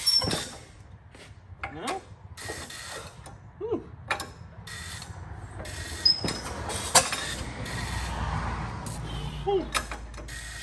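The four-cylinder engine of a 1922 Fordson tractor being turned over by its hand crank: an irregular mechanical clatter with scattered sharp pops as it tries to fire but does not catch.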